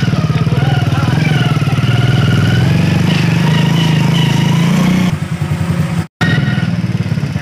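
Motorcycle engine running steadily while riding. It cuts out for a split second about six seconds in, then carries on.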